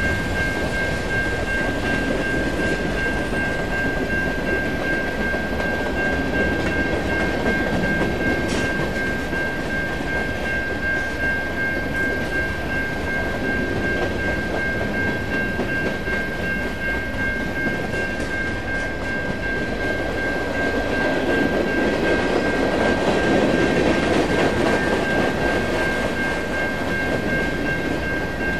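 A train rolling past on the track, a steady rumble that swells about three-quarters of the way through, with a steady high whine above it.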